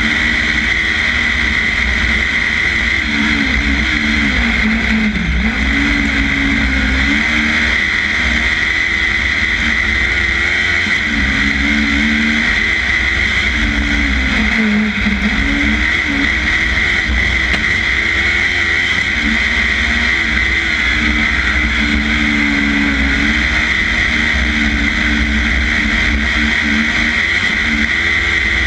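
Onboard sound of a 500 cc kart cross racing flat out: the engine runs loud and hard, its pitch dropping and climbing back twice, about five and fifteen seconds in, as the driver lifts and gets back on the throttle. A steady high hiss and a low rumble run under it.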